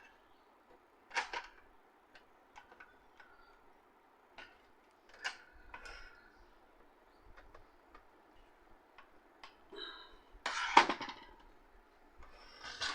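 Scattered small clicks and knocks of plastic and metal parts of an opened HP LaserJet M1005 printer being handled during repair work on its motor, with one louder clatter near the end.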